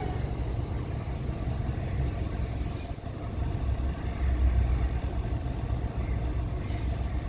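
Toyota Corolla engine idling with a steady low rumble that grows a little louder after a brief dip about three seconds in.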